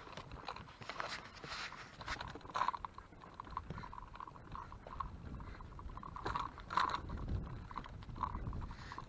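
A stroller rolling and footsteps on the planks of a wooden boardwalk: irregular knocks and clatter over a low rumble that grows after a few seconds.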